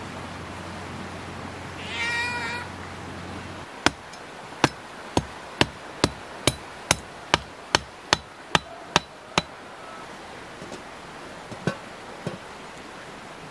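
A heavy cleaver blade chops sticks by a campfire: about a dozen sharp, evenly spaced strikes of metal into wood, roughly two a second, with a couple more knocks near the end. About two seconds in there is a brief pitched call from an animal.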